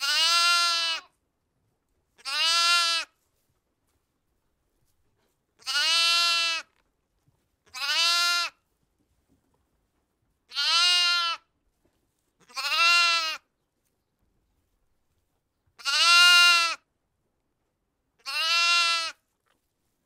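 A sheep bleating eight times, each call about a second long with a slight rise and fall in pitch, the calls coming in pairs with silence between.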